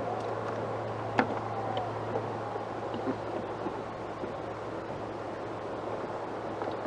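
Boat on open water with a steady low hum and the wash of water and wind, broken by a sharp knock about a second in and a few light ticks.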